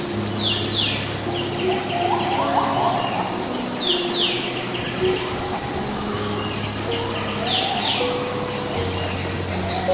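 Wild birds calling: pairs of quick downward-sweeping chirps that repeat about every three and a half seconds, with a lower warbling phrase twice. Underneath are held low tones and a steady hiss.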